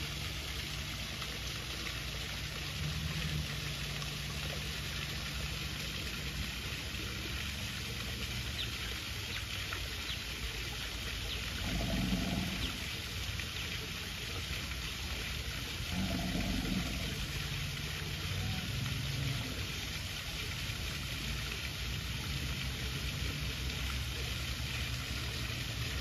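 American alligators bellowing in mating season: a couple of low, drawn-out bellows several seconds apart over a steady low hum.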